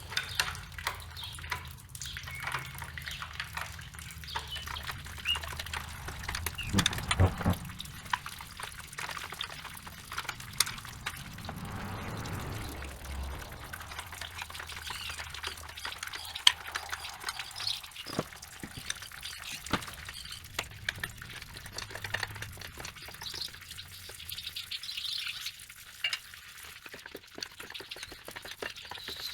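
Hand tools working a long bolt out of a Caterpillar D4's water pump pipe: a steady stream of small metallic clicks and ticks, with a few louder knocks on metal.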